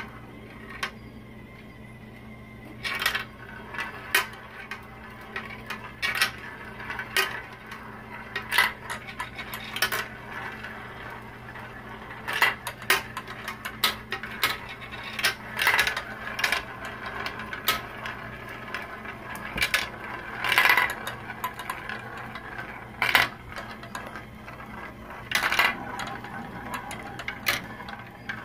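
Glass marbles rolling and clattering down a plastic marble run: many sharp clicks and knocks as they drop from trays into spiral funnels and chutes, over a steady low hum.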